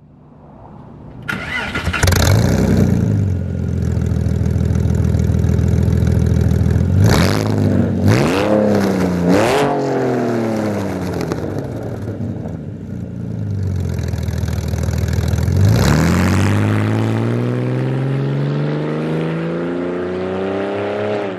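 2007 Porsche 911 Carrera's 3.6-litre flat-six starting up about a second in and settling into a steady idle, blipped in a few quick revs between about seven and nine seconds in. About sixteen seconds in the car pulls away, engine pitch rising steadily as it accelerates off.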